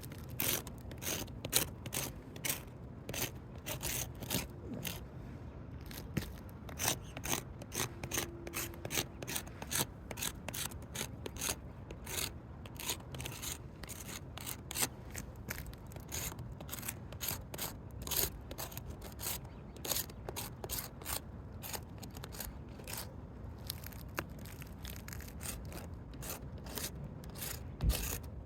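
Repeated short scraping and rubbing strokes on asphalt roof shingles, often several a second, uneven, with brief pauses.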